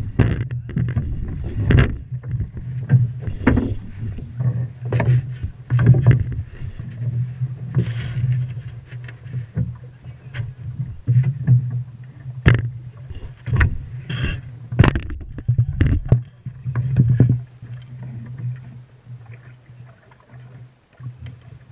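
Irregular knocks and thumps of rope and gear against a wooden boat's hull, with a few sharp cracks, as a thick rope is hauled hand over hand right beside them. A steady low rumble runs underneath, and the knocking eases off over the last few seconds.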